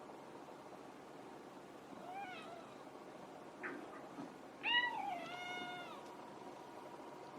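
Domestic cats squabbling: a short meow about two seconds in, a couple of brief sharp sounds, then a louder, longer wavering meow-yowl near five seconds, over a low rumbling purr-growl.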